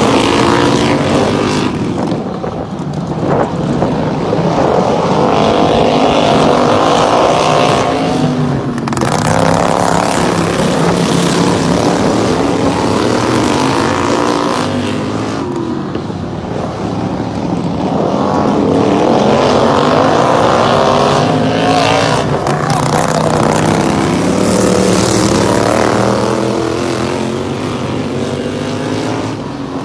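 Several racing lawn tractors' small engines running hard around a dirt oval, their pitch rising and falling again and again as they come round and pass by.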